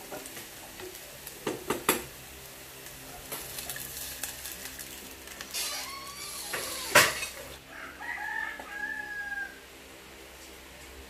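Wooden spatula stirring sautéing garlic and onion in a small saucepan, knocking against the pot a few times. About six seconds in, water goes into the hot pan with a hiss and a sharp knock. A rooster crows in the background near the end.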